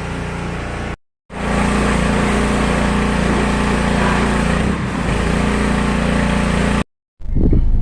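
A steady motor running with a hiss over it, cut off abruptly about a second in and again near the end.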